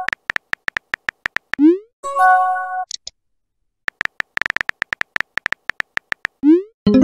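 Phone keyboard tapping sound effects, a run of quick clicks, each followed by a short rising swoosh and a brief multi-note chime as a text message is sent. It happens twice: the second run of clicks is longer and ends in a lower chime.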